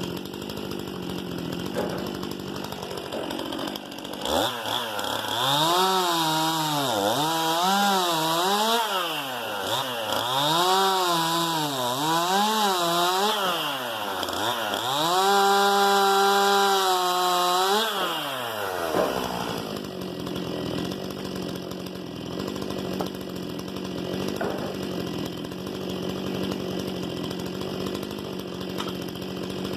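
Stihl MS 261 C-M two-stroke chainsaw idling, then opened up about four seconds in, its engine speed rising and falling several times before holding high for a few seconds. It drops back to idle a little past the middle and idles steadily after that.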